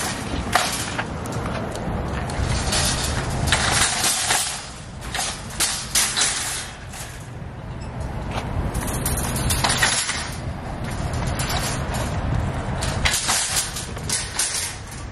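Wire-frame metal shopping cart rolling over asphalt: the wheels rumble steadily and the frame rattles, with irregular sharp metal clanks and clatters throughout.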